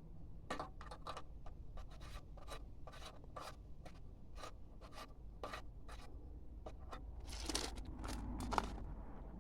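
Handling noise while refuelling a petrol lawnmower: irregular small scrapes and clicks, about two or three a second, with a louder rushing scrape near the end.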